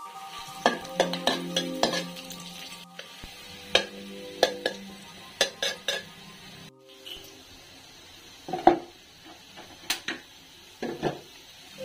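Metal spatula clinking and scraping against an aluminium cooking pot in quick irregular strokes while slices fry in a little oil, with faint sizzling.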